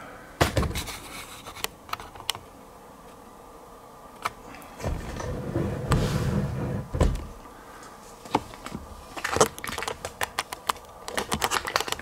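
Irregular light clicks and taps, with a softer rustling stretch in the middle and a quick run of clicks near the end: close handling noise.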